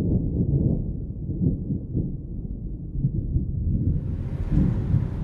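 A low, muffled rumble with uneven swells, part of the animated film's soundtrack; about four seconds in, a steady hiss joins it.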